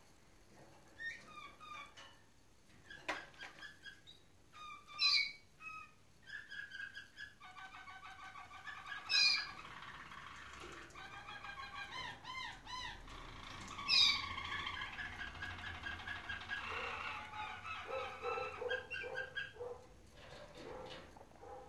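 Roller canaries singing: scattered short chirps, then from about a third of the way in a long stretch of rapid rolling trills and repeated notes, broken by three loud, high sweeping whistles.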